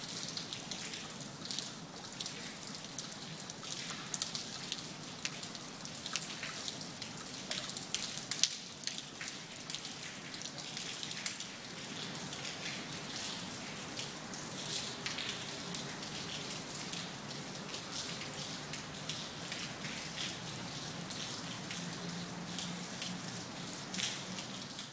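Steady rain falling, with many individual drops and drips landing on wet stone paving and water. A faint low hum comes in about halfway through.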